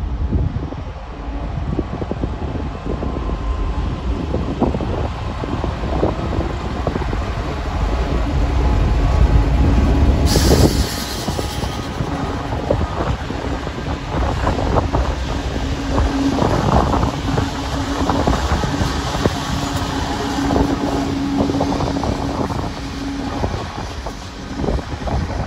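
Coal train hauled by Pacific National 92 class diesel locomotives passing through the station. The engines give a steady low hum over a heavy rumble, and the wheels click repeatedly over the rail joints through the second half.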